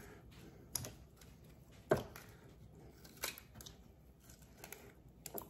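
Hands breaking a peeled onion quarter into its layers: a few short, crisp snaps, the loudest about two seconds in.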